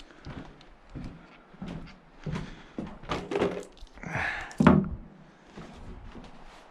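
A series of handling knocks and thunks, irregularly spaced. About four seconds in there is a short rasping noise, followed at once by one loud thunk.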